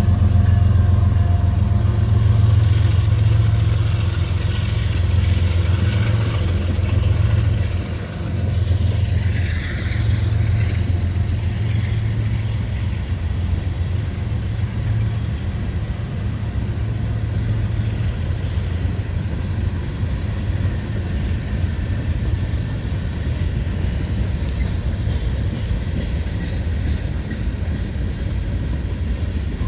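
Mixed-freight (manifest) train rolling past, a steady low rumble of the locomotive and cars on the rails.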